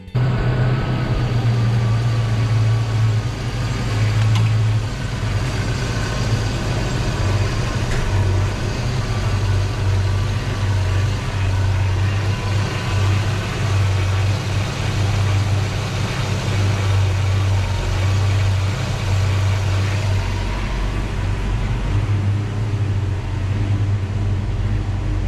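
Ford 5.0-litre V8 (a 1993 Mustang Cobra engine in a 1989 Saleen Mustang) idling steadily with a low exhaust rumble. The sound turns deeper, with less top end, about twenty seconds in.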